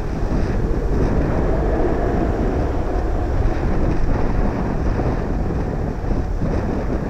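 Distant roar of a Boeing jet airliner's engines as it rolls out on the runway after landing, swelling for a few seconds and then easing, with wind rumbling on the microphone.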